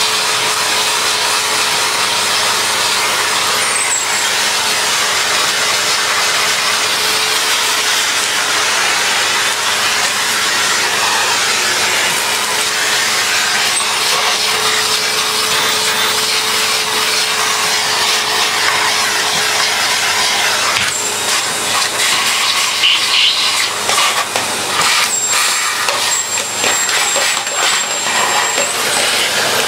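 Vacuum cleaner running, its hose sucking dust and debris off a dirty old upright Hoover. A steady whine carries on for about two-thirds of the way. Then the sound turns uneven, with clicks and rattles as the nozzle is worked over the casing.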